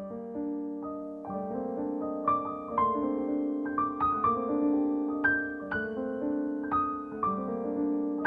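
Background piano music: single notes struck about twice a second, ringing over held lower notes.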